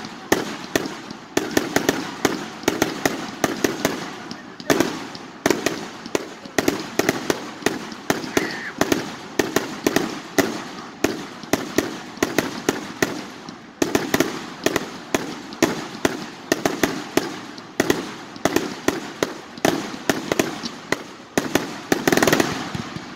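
Fireworks going off in quick succession: a steady string of sharp bangs, about two a second, with crackling pops in between.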